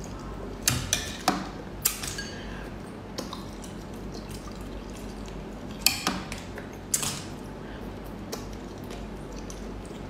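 Wet, sharp slurps as small snails are sucked off a skewer and out of their shells. There is a cluster of them in the first two seconds and a couple more around six and seven seconds in.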